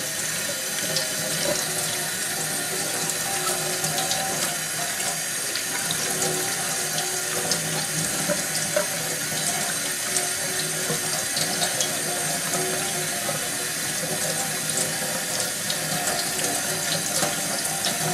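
Kitchen tap running steadily into a stainless steel sink, the stream broken up as a split leek is rinsed under it.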